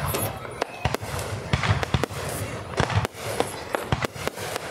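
Aerial firework shells bursting overhead in quick succession: sharp bangs and deeper booms, about two or three a second.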